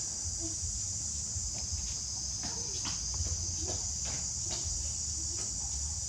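Steady high-pitched insect drone, with a low hum underneath and a few soft clicks and rustles near the middle.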